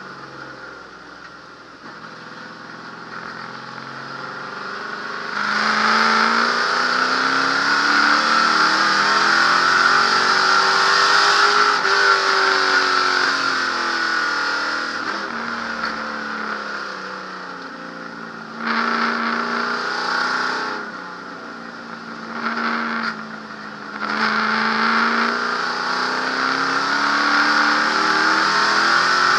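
1963 Ford Galaxie's 427 V8 race engine heard from inside the cabin, quieter at first, then under hard throttle from about five seconds in, rising in pitch and falling away again. Past the middle it comes off throttle with two short loud bursts of power before going back to full throttle near the end.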